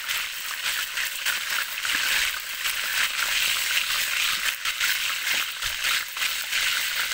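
Cooking oil sizzling in a pot: a steady hiss with scattered small crackles.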